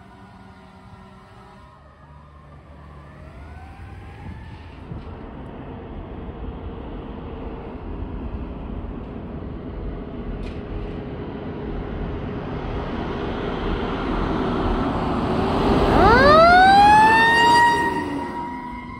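Fire engine responding with its siren. A distant siren rises and falls at first, then the truck's engine and tyres grow steadily louder as it approaches. As it passes at its loudest, the siren winds up sharply in pitch and then holds a high steady tone.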